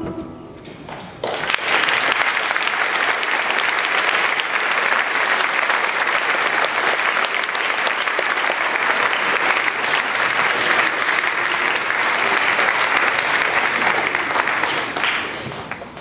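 Audience applauding after a song, starting suddenly about a second in, holding steady, then dying away near the end.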